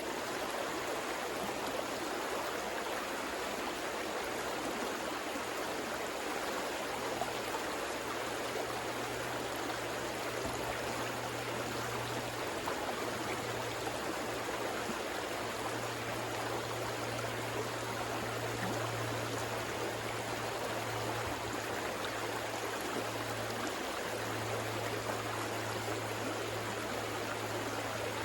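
River water flowing steadily, a continuous rushing with no pauses, over a faint low hum.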